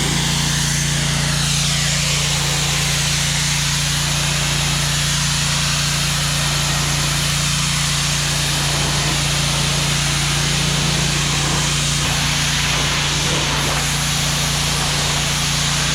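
A small engine running steadily under a loud, even rushing hiss.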